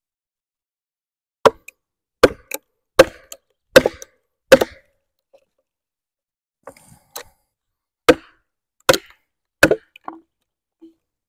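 Wooden mallet with a spalted oak head striking the back of a hatchet set in the end of a log, driving it in to split the log. Five hard blows about three quarters of a second apart, a pause with a couple of light taps, then three more blows.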